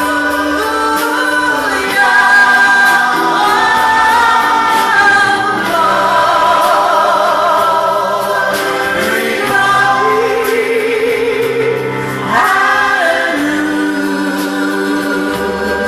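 Live gospel singing through microphones, a group of women and a man holding long notes with vibrato, with keyboard and drum kit accompanying.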